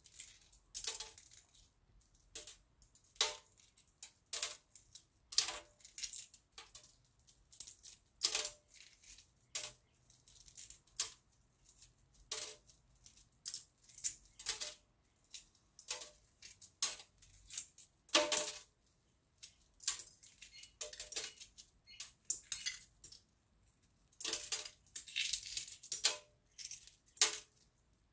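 Hard-boiled egg shell being cracked and peeled by hand, with irregular crackles and clicks as shell breaks and small pieces drop into a stainless steel sink. The loudest crack comes about 18 seconds in.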